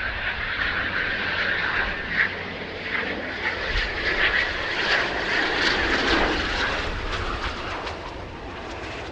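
Jet noise from a Eurofighter Typhoon's twin EJ200 turbofans as the fighter comes in low with its gear down and runs along the runway: a steady whine over a rushing rumble, loudest in the middle and easing off near the end.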